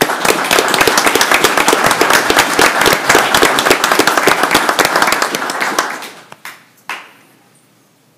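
A room of people applauding, many hands clapping fast and evenly. The applause dies away about six seconds in, leaving a couple of last single claps.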